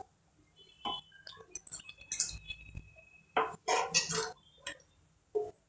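Scattered light clinks and knocks of kitchen utensils against cookware and dishes, a few leaving a brief ringing tone, with a denser run of clatter about three and a half seconds in.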